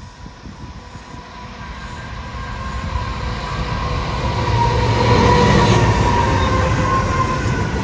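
Diesel-hauled coal train with two locomotives approaching and passing close by. The low engine rumble and a steady high whine build up and are loudest about five seconds in as the locomotives go past, then ease as the hopper wagons begin rolling by.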